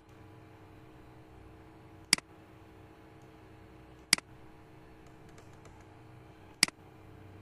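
Computer mouse clicks: three sharp clicks about two to two and a half seconds apart, each with a small second tick, over a low steady hum.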